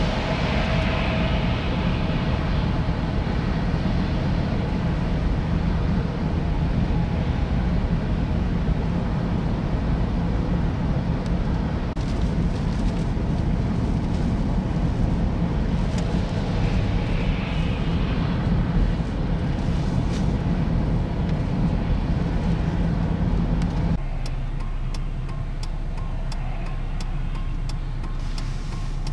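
Steady road noise from inside a car driving on a snow-covered highway: engine rumble and tyres on the wet, snowy pavement. About three quarters of the way through it cuts to a quieter steady low hum with faint ticking.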